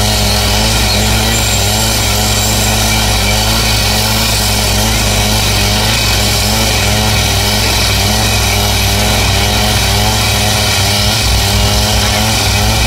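Two-stroke petrol cut-off saw running at full speed, its abrasive disc grinding through a steel railway rail: a steady engine drone with a loud hiss of cutting over it. Near the end the engine note turns uneven.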